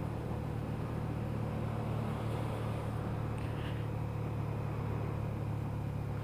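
Suzuki SFV650 Gladius's 645 cc V-twin engine running steadily as the motorcycle cruises down a street, under a haze of road and wind noise.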